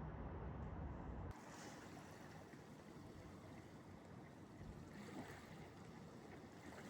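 A low, steady rumble that stops abruptly a little over a second in, followed by faint, even wind noise.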